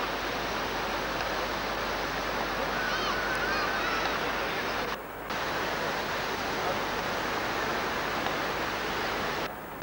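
Steady rushing beach noise of surf and wind. It drops out briefly twice, about five seconds in and near the end, where the footage is cut.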